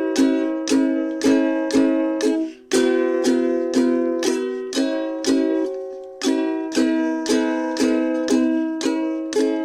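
Background music: a ukulele-like plucked string instrument strumming chords at a steady, even pace of about two strokes a second.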